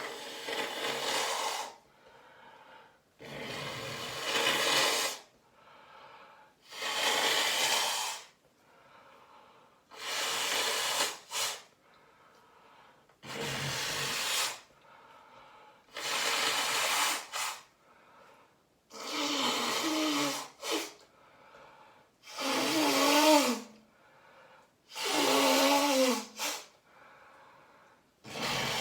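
A person blowing their nose hard into a tissue, about ten long blows at an even pace of about one every three seconds, with quieter breaths between them. The later blows carry a wavering honk.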